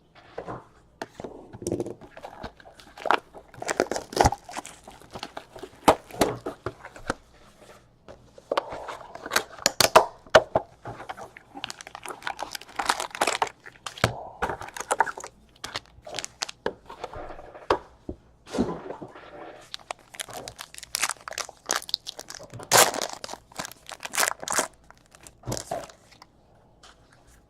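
Crinkling and tearing of trading-card packaging and plastic, with cards and sleeves being handled: an irregular run of crackles, rustles and sharp clicks.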